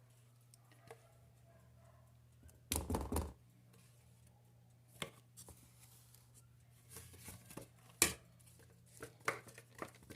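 Kitchen handling noises as a cake pan lined with parchment paper is worked on: a short crinkling rustle about three seconds in, then scattered light knocks and taps. A low steady hum runs underneath.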